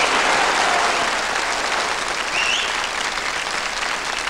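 Hall audience applauding steadily, easing off slightly as it goes.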